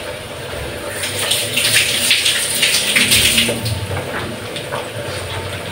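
Water running from a tap into a sink while something is rinsed, heavier for a couple of seconds from about a second in, then lighter.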